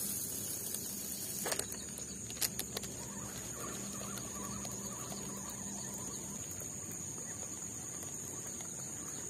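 Quiet outdoor ambience with a steady high-pitched hiss and a few faint clicks, about one and a half and two and a half seconds in.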